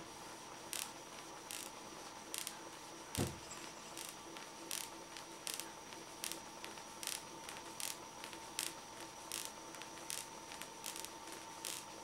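Sharp static crackles, about one or two a second, as a PVC pipe is rubbed with a cloth to build up a static charge, with one louder pop with a low thump a little over three seconds in. A steady electrical hum sits underneath.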